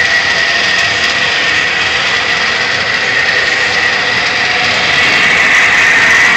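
A machine running steadily, with a constant high-pitched whine.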